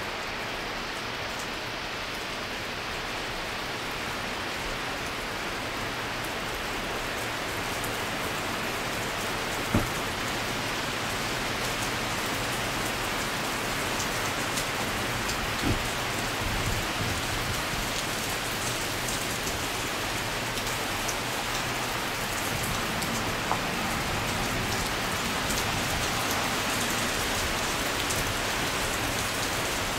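Steady rain falling on a wet gravel driveway ahead of Hurricane Irene, growing slightly heavier. A few brief knocks stand out, the loudest about ten seconds in.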